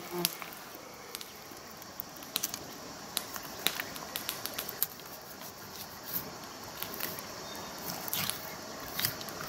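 Filleting knife cutting along a raw trout's backbone and rib bones, a string of irregular small clicks and crunches.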